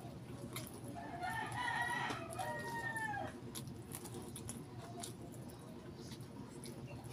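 A rooster crowing once, starting about a second in and lasting a little over two seconds, its pitch rising and then falling away at the end. Faint mouth clicks from chewing run underneath.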